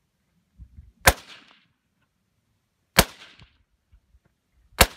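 Three rifle shots about two seconds apart, each a sharp crack with a short echo after it.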